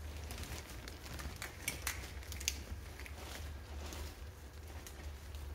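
Scattered light clicks and crackles of gloved hands handling a scooter's wiring loom and plastic connectors, over a steady low hum.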